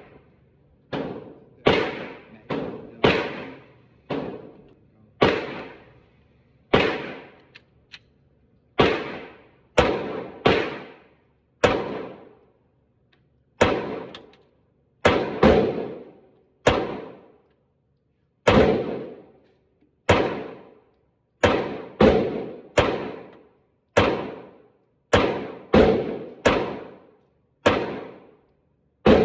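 Glock pistol fed from a 50-round Magpul drum magazine, fired shot by shot at an uneven pace, about thirty shots, each sharp crack followed by a short echoing decay.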